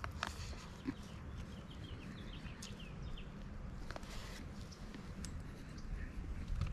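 A small bird calling: a quick run of short, falling chirps about one and a half seconds in, over a low steady rumble, with a few faint clicks.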